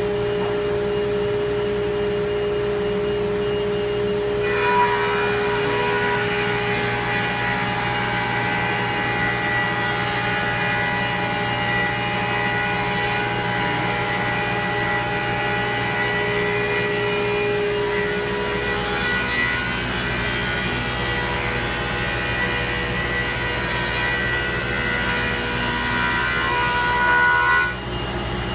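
Thickness planer running. About four seconds in, it starts cutting a knotty pine slab, adding a higher, harsher note over the steady motor hum that holds for over twenty seconds. The cutting stops abruptly shortly before the end as the board clears the cutterhead.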